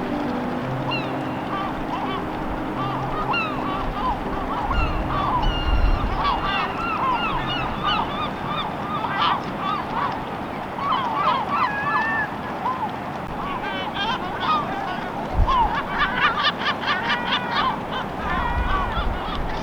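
A flock of birds calling, many short calls overlapping throughout and thickest near the end.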